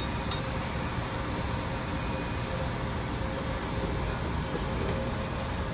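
A steady rushing machine noise runs throughout, with a few light metallic clinks near the start as gloved hands handle a steel clamping fixture.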